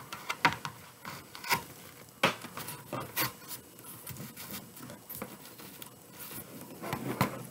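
Hands handling a foam-board cutout face and a burlap wreath on a cutting mat: irregular light taps and clicks, with rubbing and rustling in between.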